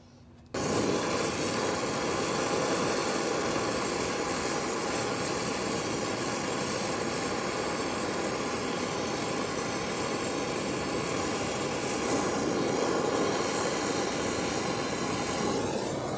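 Brazing torch flame hissing steadily as it heats a copper refrigerant line joint at an air-conditioner condenser's brass service valve. It starts suddenly about half a second in as the torch is lit and begins to fade near the end.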